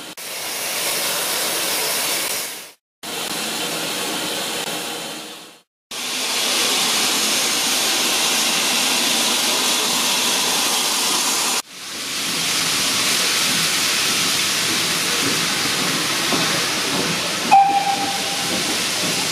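Steam locomotive hissing steadily as steam escapes, broken twice by brief gaps of silence and by a sharp break about two-thirds of the way through. Near the end a short, steady whistle sounds.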